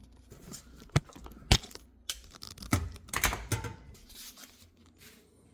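Knocks and clatter of a flashing-covered wooden hive lid being handled and set onto a beehive: two sharp knocks about half a second apart, then a short burst of rattling clicks.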